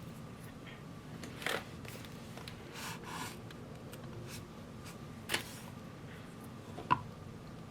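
A soap shaver's blade scraping across a bar of handmade soap in a few short, faint strokes, with a light click near the end.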